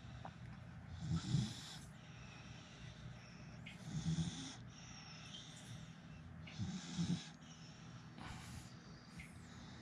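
A beagle breathing slowly and deeply with a snuffly, snore-like sound on each breath, about every three seconds.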